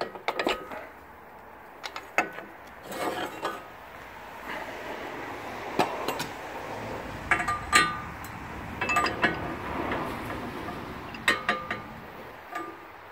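Irregular metallic clinks and clanks of steel engine-stand parts being handled and knocked together, some strikes ringing briefly.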